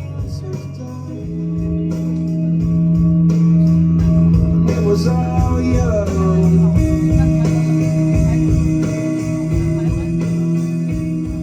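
A live band playing loudly, with sustained electric guitar chords over a driving low rhythm.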